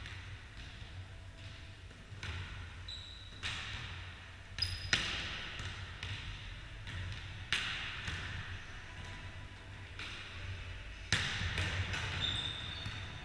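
A volleyball being played: about six sharp slaps of hands and forearms on the ball and the ball on the wooden floor, a few seconds apart, each ringing on in the gym hall's echo. Brief high sneaker squeaks on the floor come between them.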